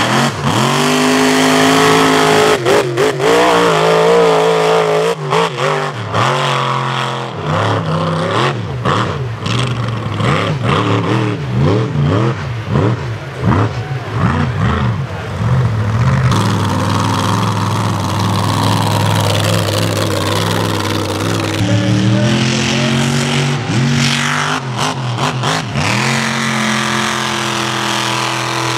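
Mega mud truck's big engine revving hard, its pitch climbing and dropping again and again under full-throttle runs, with abrupt throttle lifts in between.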